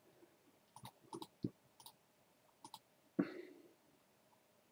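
Faint computer mouse clicks, a handful of quick ones around a second in and a pair near the three-second mark, with one louder knock just after.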